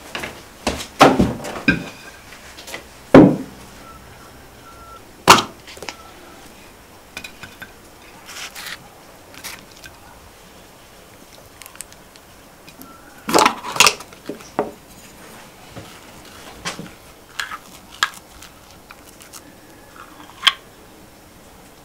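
Intermittent knocks and clinks of cookware and utensils being handled, with quiet gaps between. The loudest knocks come about one, three and five seconds in and in a cluster near the middle.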